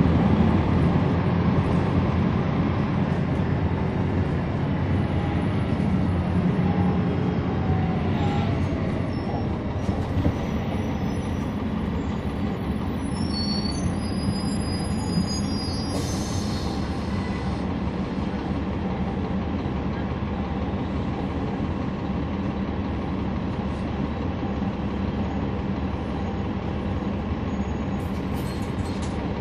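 2011 NABI 40-SFW transit bus under way, heard from inside the cabin: the steady rumble of its Cummins ISL9 diesel and ZF Ecolife automatic drivetrain together with road noise, loudest at first and easing over the first several seconds before holding steady. About halfway through come a brief high squeal and a short hiss.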